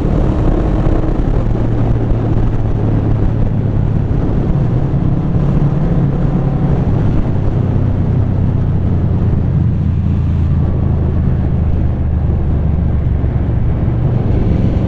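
Heavy wind rush on a helmet-mounted lav mic at road speed, over the steady low drone of a 1995 Yamaha Vmax 1200's V4 engine through a Delkevic carbon slip-on exhaust.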